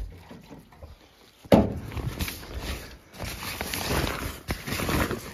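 Rustling and scraping of a canvas tarp being handled and pulled back, with a sharp knock about a second and a half in.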